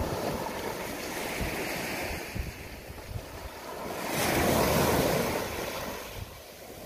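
Small sea waves breaking and washing up the sand around boulders, one wave surging in louder about four seconds in and then draining back. Wind rumbles on the microphone underneath.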